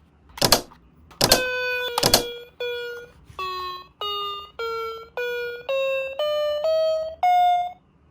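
A sharp click, then a short melody of about eleven electronic beeping notes, each about half a second long, that dip and then climb step by step in pitch before stopping near the end.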